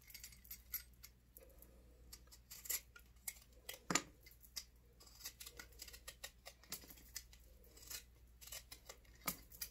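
Faint scraping and clicking of a small metal blade cutting the peel from a lemon, in short irregular strokes, with one sharper knock about four seconds in.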